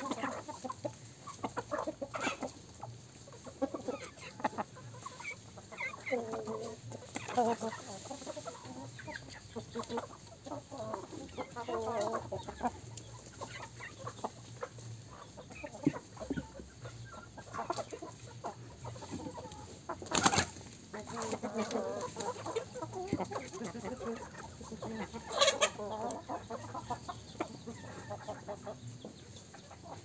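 A flock of chickens, hens and roosters, clucking in short repeated calls as they forage. Two sharp knocks stand out, about twenty and twenty-five seconds in.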